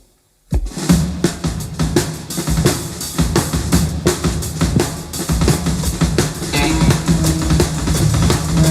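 Live hard rock drum kit from a 1970 concert recording, coming in after a brief silence about half a second in with fast, dense snare, bass drum and tom hits.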